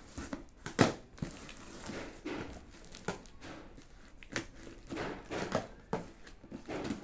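Plastic parcel packaging crinkling and rustling as it is handled, in irregular bursts with a sharp crackle just under a second in.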